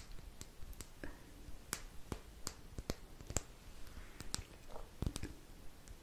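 Soft, irregular clicks and taps close to the microphone, a few each second.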